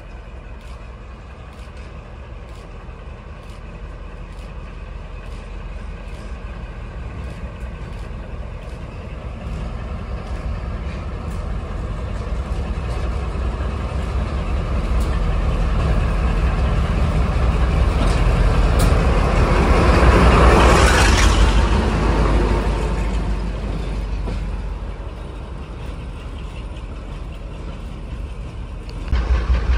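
Diesel locomotive running in and passing close by, its engine sound building slowly to a loud peak about two-thirds of the way through and then easing off. Near the end a heavy, rapid low throbbing starts suddenly.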